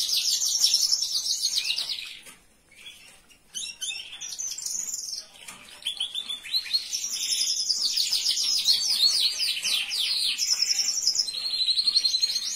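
Domestic canary singing long, fast rolling trills of rapidly repeated high notes. The song breaks off briefly about two seconds in, picks up again a second or so later, and runs on unbroken through the second half.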